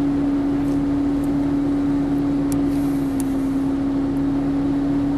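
Steady cabin noise inside a car driving slowly: engine and road noise with a constant low hum.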